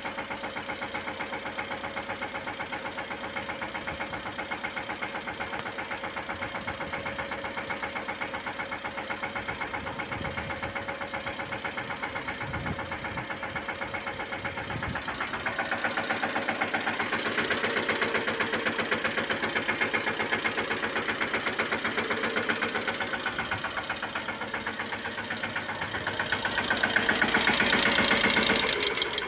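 Mahindra Yuvraj 215 mini tractor's single-cylinder diesel engine running steadily with an even thudding beat, growing louder about halfway through and loudest just before the end.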